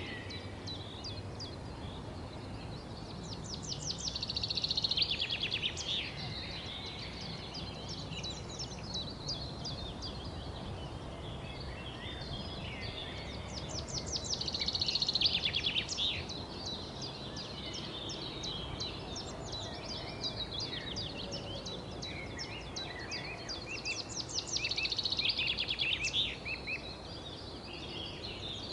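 Songbirds chirping, with one bird three times singing a loud, fast series of rapidly repeated high notes, about ten seconds apart, over fainter twittering and a steady low background noise.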